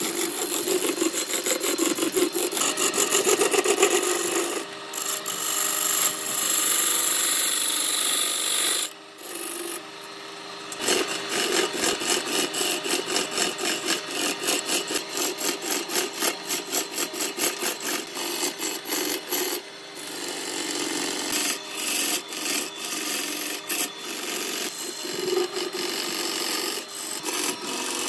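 A hand-held turning tool cutting into a large glued-up wooden blank spinning on a wood lathe: a continuous scraping, rasping cut that pulses as the tool is worked along the piece. It drops off briefly about nine seconds in, then resumes.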